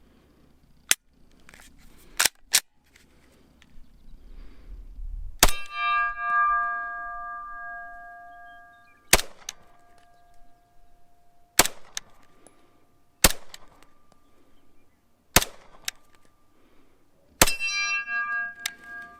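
A Glock 34 firing 9mm target rounds at a steel target: about ten sharp shots, mostly spaced two or three seconds apart. Hits on the steel plate ring on as a clear ringing tone, loudest after the shots about five seconds in and near the end.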